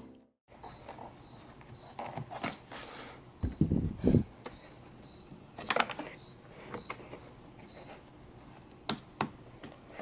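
Insects chirping steadily, about two or three short chirps a second, with a few scattered clicks and knocks.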